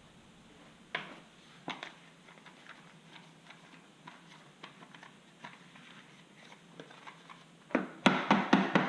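Plastic chainsaw air-filter parts being handled: a couple of light clicks, then a quick cluster of knocks and rattles near the end.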